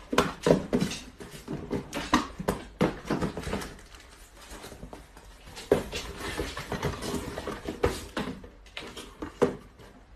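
Small cardboard boxes being handled and packed into a carton: irregular knocks, taps and rustling of cardboard, quieter for a moment in the middle.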